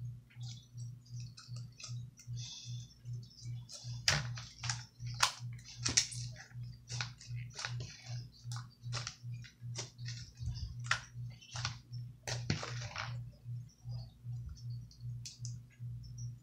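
Overactivated white glue slime with kinetic rock mixed in, squished and kneaded by hand, giving a run of crackling clicks and pops that are thickest through the middle. A low hum pulses steadily underneath, about twice a second.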